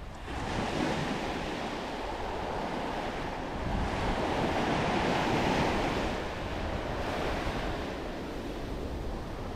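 Ocean surf washing onto a beach in slow swells, with wind rumbling on the microphone.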